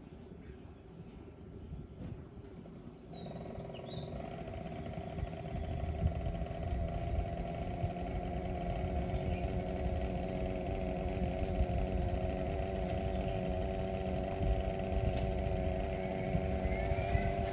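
A small motor or engine starts running about three seconds in and gets louder over the next few seconds, then runs steadily at a constant pitch, a hum with a thin high whine above it.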